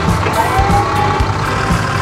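Tractor engine sound effect running steadily, mixed with background music that has a steady beat about twice a second and a short rising tone near the start.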